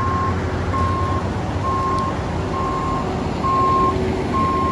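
Concrete mixer truck reversing: its back-up alarm beeps steadily, about one beep a second, over the low rumble of its diesel engine.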